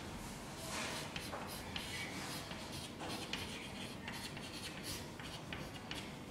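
Chalk writing on a chalkboard: faint scratching strokes and light taps as the letters are formed.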